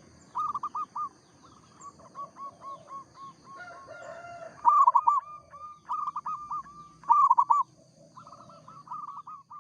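Zebra dove (perkutut) cooing in phrases of quick, repeated arching notes, loudest about five and seven seconds in, with fainter runs of notes between. This is the vigorous song of a 'gacor' local perkutut, used as a lure call to set other perkutut calling.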